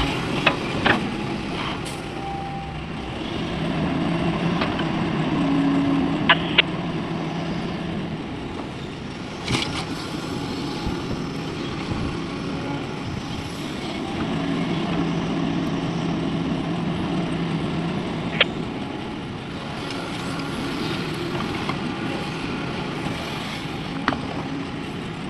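Excavator's diesel engine working, its note rising and strengthening under load twice for several seconds at a time, with scattered sharp clicks and knocks.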